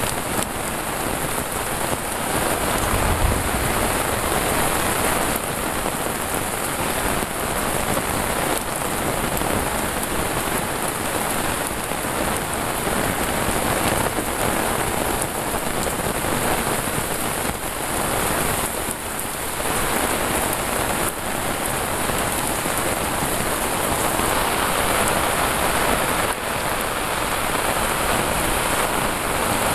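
Heavy rain pouring steadily onto leaves and a concrete path, driven by wind, with a brief low bump about three seconds in.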